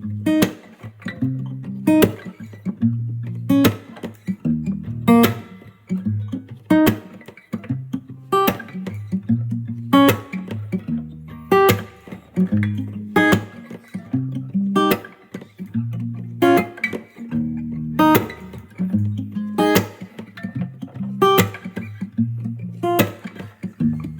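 Background music: a strummed guitar over a low bass line, with a steady beat.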